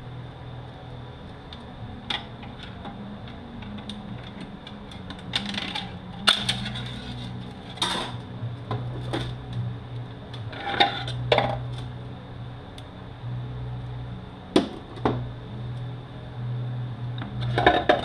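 Metal parts of a Mercedes 722.9 automatic transmission clinking and knocking as it is taken apart by hand: sharp clicks and clanks at irregular intervals, over a steady low hum.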